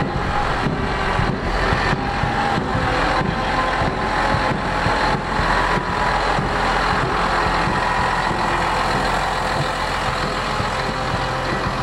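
A heavy vehicle's engine running steadily at low speed, as from a lorry or tractor pulling a carnival float.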